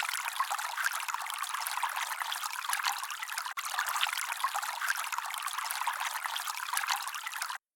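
Small stream of water pouring and trickling steadily from a mini water pump's outlet.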